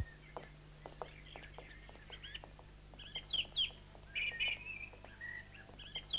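Birds chirping: short, quick calls that repeat from about two seconds in, over a few faint light taps.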